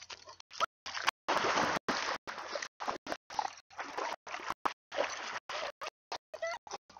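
A dog splashing into shallow lake water and wading through it, loudest about a second in; the sound cuts in and out repeatedly.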